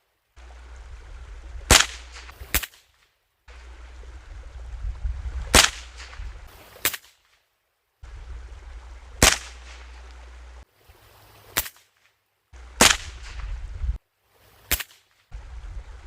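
AR-15 with a CMMG .22 LR conversion bolt carrier group firing eight single shots, one to three seconds apart, as sharp cracks. Each round cycles without a stoppage: the conversion is running reliably. A low wind rumble is on the microphone between shots.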